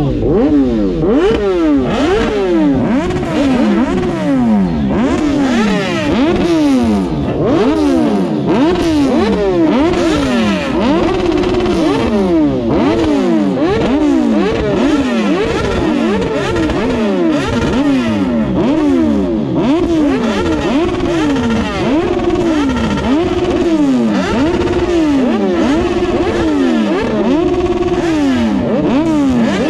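A sport bike's engine revved hard over and over through its exhaust, about one blip a second: each rev rises sharply and drops back, some held briefly at the top before falling.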